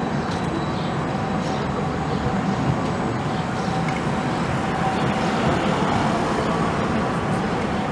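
City street traffic with a tram and a car passing: a steady rumble with a faint steady whine over it.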